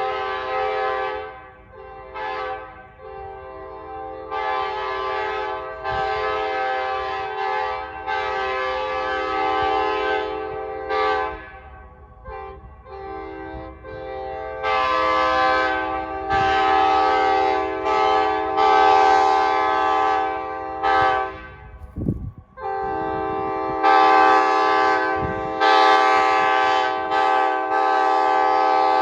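Multi-chime locomotive air horns sounding a loud chord in a string of blasts, a few short toots and several long ones lasting a few seconds each, with brief breaks between them.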